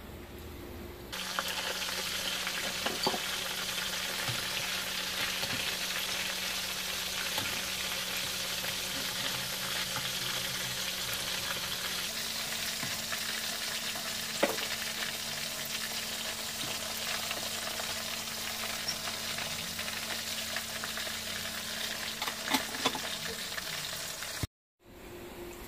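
Chicken pieces deep-frying in a pan of hot oil: a steady sizzle that starts about a second in, with a few light knocks of a spatula turning the pieces.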